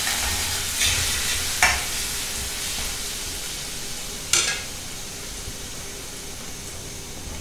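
Crushed garlic sizzling in hot oil in a steel kadhai over a low flame, the sizzle slowly getting quieter. A steel spatula scrapes the pan near the start, and there is a sharp knock about four seconds in.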